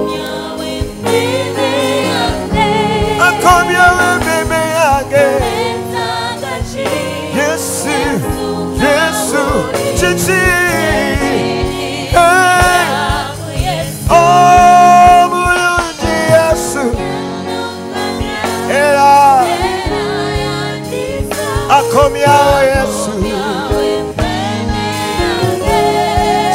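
Live gospel worship song: a male lead singer and a group of backing singers over steady instrumental accompaniment, with a loud held note in the middle.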